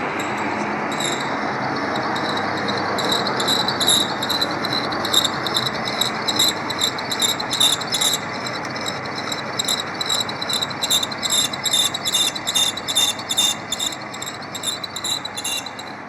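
Centre lathe running while the cutting tool turns steps on a workpiece. A steady motor and gearbox noise sits under a high scraping of the cut that repeats about three times a second, starting about a second in and growing stronger after about three seconds.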